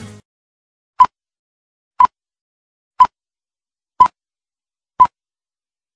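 Film-leader countdown beeps: five short, identical high beeps, evenly spaced one a second, with silence between them.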